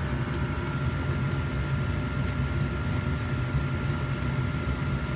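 Diesel air heater's fuel dosing pump ticking steadily about three times a second, over the steady rumble of the heater running.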